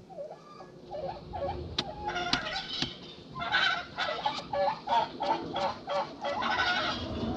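Domestic fowl calling: a few scattered calls, then a quick run of about eight honk-like calls from about halfway through.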